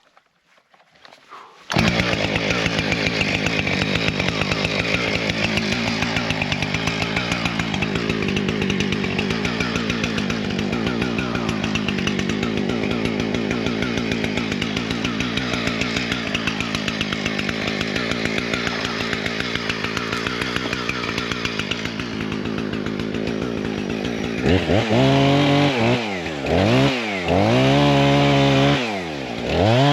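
Two-stroke chainsaw cutting into a beaver dam's sticks and logs: it starts about two seconds in and runs steadily at high speed for some twenty seconds. Near the end the engine revs up and down several times.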